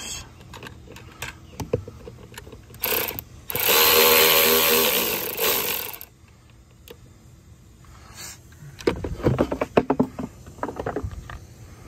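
Milwaukee cordless ratchet spinning a nut off a battery terminal: a short blip, then a run of about two and a half seconds with a steady motor whine. Near the end come a scatter of light clicks and knocks as the nut and cable are handled.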